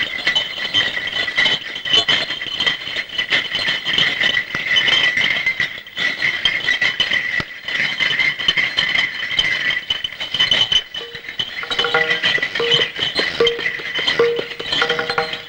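Bullock cart on the move: a continuous rapid jingling rattle. Near the end a repeating musical note comes in over it.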